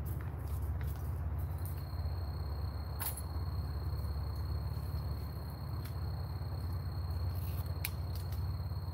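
Steady low outdoor rumble with a faint, thin high whine that comes in about a second and a half in, and two sharp clicks, one near the middle and one near the end.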